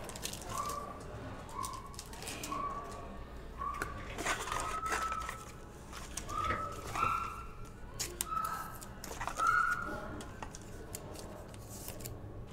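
Trading-card packs and cards being handled, with foil wrappers crinkling and clicking, over a string of short repeated chirp-like tones, about one every 0.7 seconds, that stop about ten seconds in.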